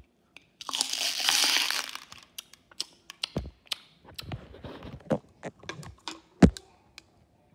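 A loud crinkling rustle for about a second and a half, then a string of scattered clicks and knocks of handling. The loudest is a sharp knock about six seconds in.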